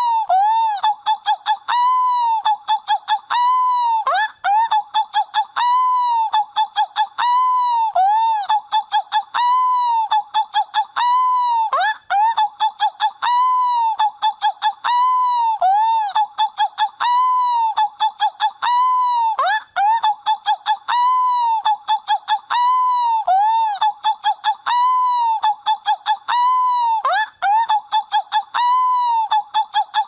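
Seagull calls repeating rapidly, each a short arching cry, with a longer upward-sliding call about every seven and a half seconds; the same call sequence loops over and over.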